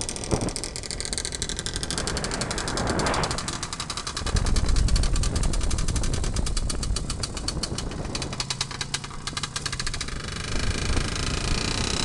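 IZh-56 motorcycle's single-cylinder two-stroke engine running as it rides along, heard from a car pacing it, with a rapid, even exhaust beat. The beat gives way to road and wind noise near the end.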